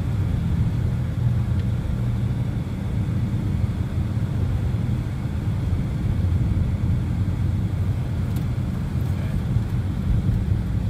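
Steady low road and engine rumble heard from inside the cabin of a BMW driving along at a steady pace.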